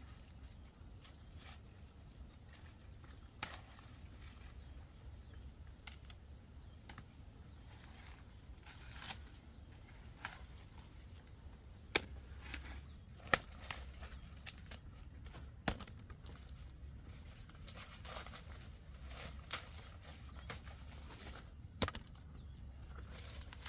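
Footsteps with scattered sharp snaps and rustles, a few louder cracks among them, over a steady faint high-pitched drone.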